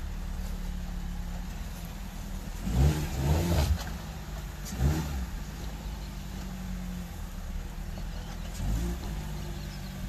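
Fiat Strada's 1.3 Firefly four-cylinder engine running at low speed under load as the pickup crawls over logs. Its steady low hum rises in short revs about three seconds in, again about two seconds later, and briefly once more near the end.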